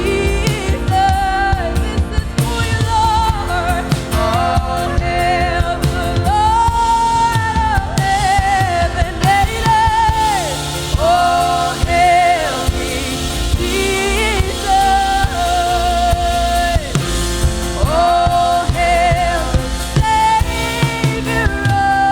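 Live worship music: a singer holding long notes with vibrato over a full band with drums.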